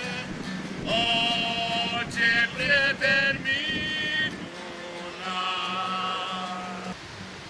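A man singing slow, long-held notes over a steady low hum of accompaniment; the song stops about seven seconds in.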